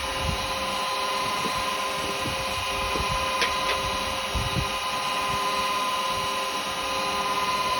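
Wood lathe running steadily with an even whine while abrasive paste is worked onto the spinning yew, with a couple of faint ticks about three and a half seconds in.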